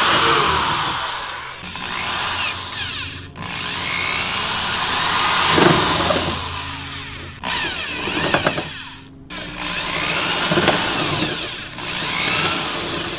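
Cordless drill boring holes through a cracked fiberglass body-kit side skirt. It runs in about four spells with brief stops between, and the motor's pitch rises and falls as the trigger is worked.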